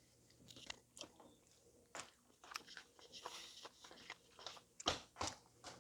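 Close-miked chewing and crunching of kimchi mung bean pancake, in scattered crisp bites, the loudest about five seconds in.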